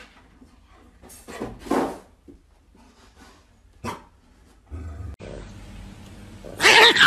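A dog gives a gruff bark about a second and a half in, then a short, sharp one about four seconds in.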